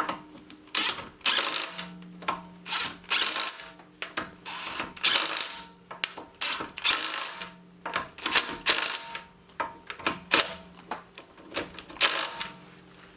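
Lug nuts being run down on a car wheel with a power tool or ratchet: a string of short, sharp mechanical rattling bursts, roughly one a second, over a faint steady low hum.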